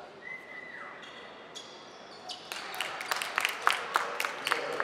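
Basketball bouncing and players' shoes hitting the hardwood court during live play, a quick run of sharp knocks over the second half. Earlier, a steady high tone holds for about a second.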